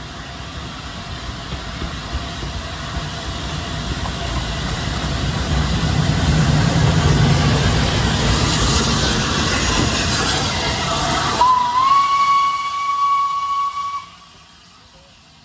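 Steam train passing, its rumble and hiss of steam growing louder. Then the locomotive's steam whistle sounds one steady note, bending up slightly at the start, for about two and a half seconds before cutting off suddenly.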